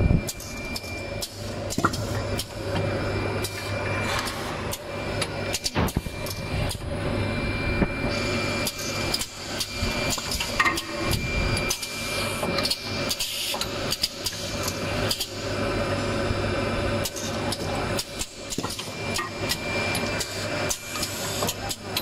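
Automatic syringe filling and plugging machine running: a dense, irregular clatter of clicks and knocks from its pneumatic actuators and indexing turntable over a steady low hum, with a vibratory bowl feeder shaking stoppers along its track.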